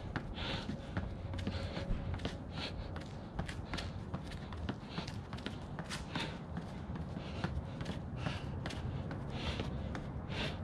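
Sneakers scuffing and tapping on a concrete driveway in a rapid, uneven rhythm as feet are driven back and forth in mountain climbers, with hard breaths about once a second.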